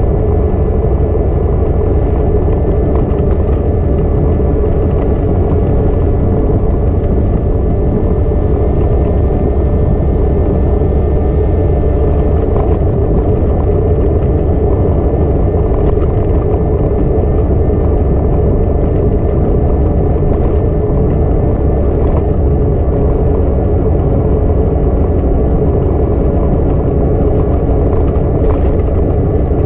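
Steady rush of wind buffeting a GoPro's microphone while riding a bicycle, heavy in the low end and unchanging, with a faint steady hum of tones beneath it.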